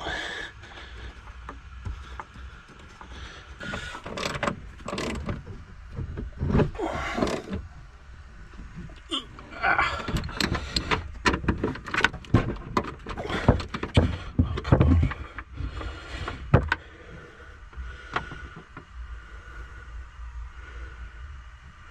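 Scattered metallic knocks, clicks and clattering of hand-tool work on a car, busiest in the middle stretch, over a faint low rumble.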